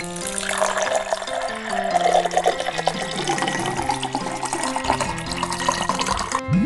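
Rushing, splashing water over background music; the water sound cuts off suddenly shortly before the end.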